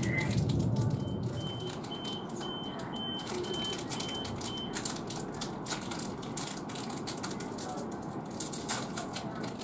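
An electronic beeper sounds a steady high beep about twice a second, eight times over roughly four seconds. Behind it is the echoing ambience of a railway station platform with distant voices.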